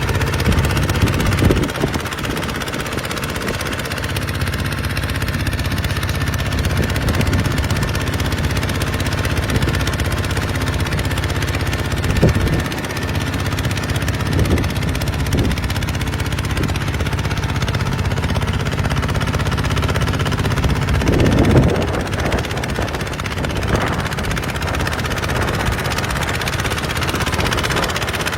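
Kubota RT140's single-cylinder diesel engine running steadily under load, with a few brief louder surges.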